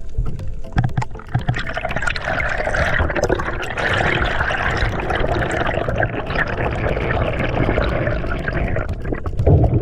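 Rushing, bubbling water, a steady dense wash of noise that swells up about a second in and eases off near the end.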